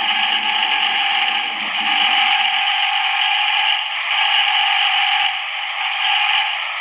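Sound system under test giving out a loud, steady rasping sound ('ngorok'): a held tone under a noisy hiss, with brief dips about 2 and 4 seconds in.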